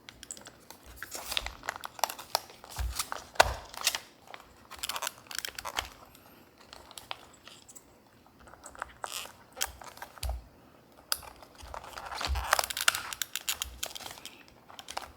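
Irregular clicks, crackles and knocks of small plastic steering-wheel trim and button parts being handled and fitted together during reassembly, with one sharper click about three and a half seconds in.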